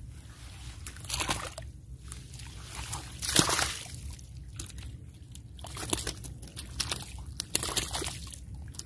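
Shallow muddy water sloshing and splashing in irregular bursts as hands grope through it for a catfish, the loudest splash about three and a half seconds in.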